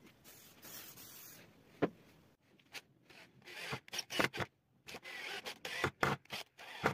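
Wood rubbing on wood, then a knock, then a cordless drill driving screws into a wooden board: short irregular bursts of grinding with clicks.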